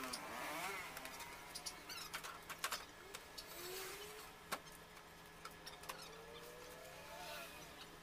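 Faint crackling and rustling of a plastic tarpaulin being dragged off and folded over a load of banana leaves, with short clicks throughout and a few faint squeaky chirps.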